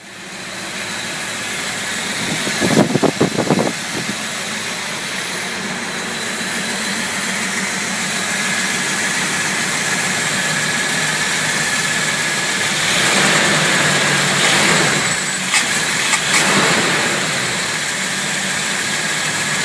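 Car engine running on its freshly rebuilt carburetor, settled into a steady run. There is a short choppy burst about three seconds in, and the engine gets louder between about 13 and 17 seconds, as when it is revved.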